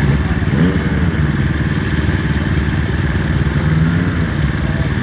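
Motorcycle engine running loudly, its revs shifting up and down a few times, as a bike works its way out of a flooded creek crossing.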